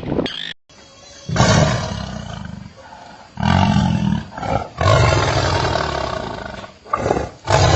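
A large animal calling loudly, with deep calls lasting one to two seconds each, about four in a row.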